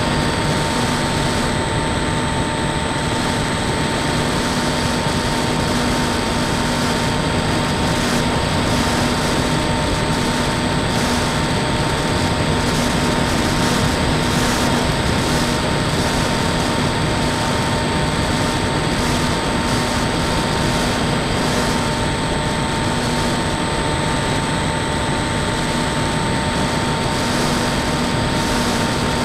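Electric motor and pusher propeller of a radio-controlled foam plane in flight, picked up by a camera mounted on the plane: a steady whine over a constant rush of wind.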